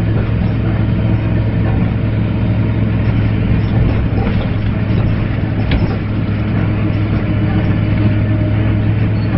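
Dennis Lance bus's diesel engine running steadily, with a constant deep hum.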